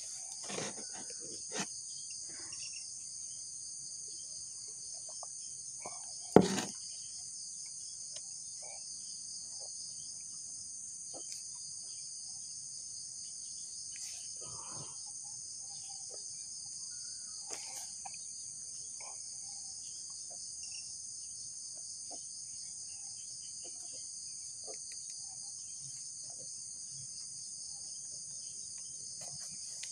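Steady, high-pitched drone of an insect chorus, with scattered light clicks and one sharp knock about six and a half seconds in.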